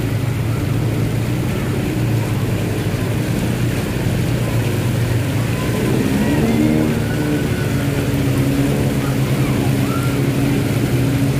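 A motor vehicle's engine running steadily as it moves slowly through floodwater, its hum picking up a little about halfway through.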